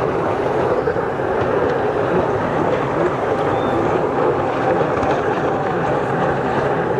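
Engines of several racing jet skis running at speed together, heard as a steady drone.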